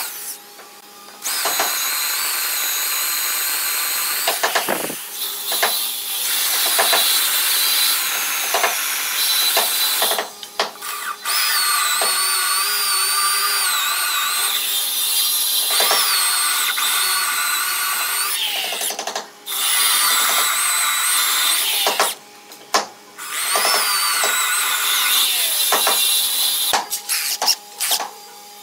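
Corded electric hand drill boring holes into thick hardwood, its motor whine wavering in pitch as the bit bites into the wood. It runs in several bursts of a few seconds each, separated by brief stops.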